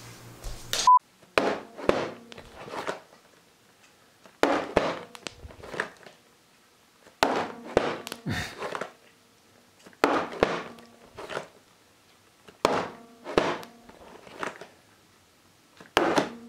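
Clusters of two or three sharp hits, each with a ringing tail, recurring about every three seconds.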